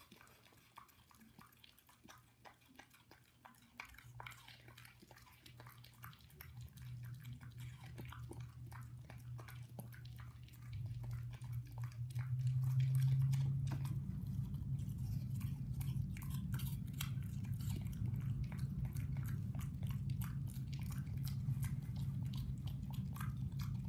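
French bulldog chewing and crunching pieces of apple, a steady run of short wet clicks and crunches. A low steady hum comes in about four seconds in and grows louder about ten seconds in.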